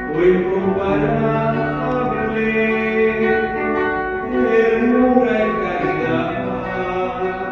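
Church music: a voice singing a slow, sustained melody over guitar accompaniment.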